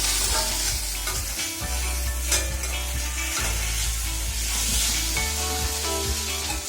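Indian borage (karpooravalli) leaves with tamarind and asafoetida sizzling as they are sautéed and stirred in a pan, with a sharp click about two seconds in.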